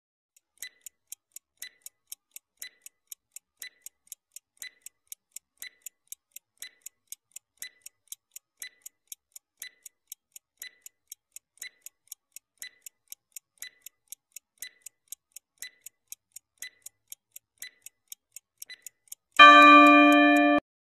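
Countdown-timer sound effect: a clock ticking steadily for about 19 seconds, several light ticks a second with a stronger tick once a second. Near the end a loud ringing tone sounds as the countdown runs out.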